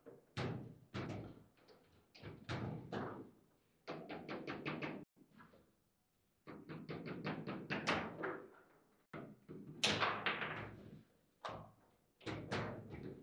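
Table football (foosball) in play: the ball and the plastic figures on the rods clacking and knocking in quick runs of sharp knocks, with the loudest hit about ten seconds in.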